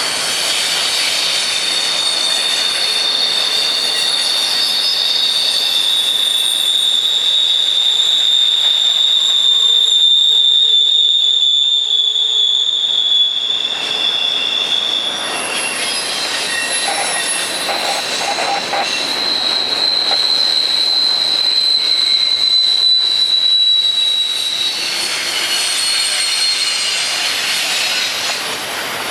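Freight train cars rolling past with high-pitched wheel squeal. The squeal holds one pitch for the first half, fades briefly, then returns at a slightly higher pitch before dying away near the end.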